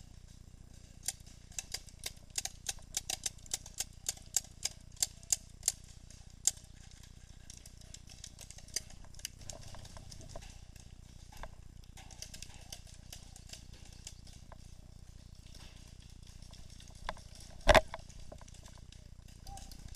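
Paintball markers firing a rapid string of shots, about four a second, for several seconds, then a few scattered shots and one louder sharp crack near the end.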